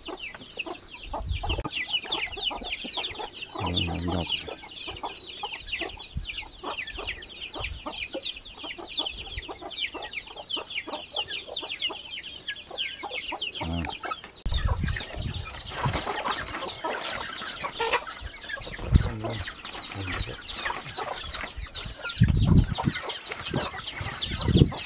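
Chickens clucking and calling, a constant chatter of many short, high, falling calls, with a few low thumps here and there.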